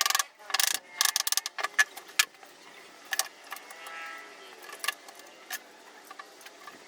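Irregular clicks and knocks from handling tools and wood pieces at a workbench, a quick run of them in the first two seconds or so, then only scattered ones.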